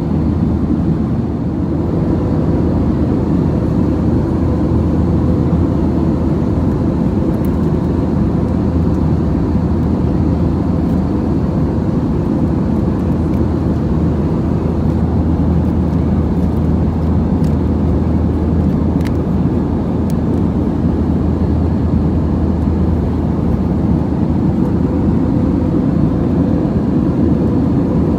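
Cabin noise of an Airbus A320-200: a steady roar with a faint hum, holding level throughout.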